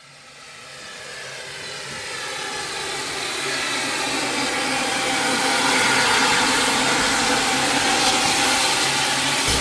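Tinplate model locomotive running along tinplate track toward the listener: a steady mechanical whirring of the motor, gears and wheels that grows louder over the first several seconds as it approaches, then holds steady.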